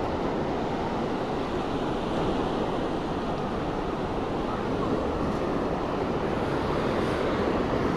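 Steady beach ambience: ocean surf rushing continuously, with wind on the microphone.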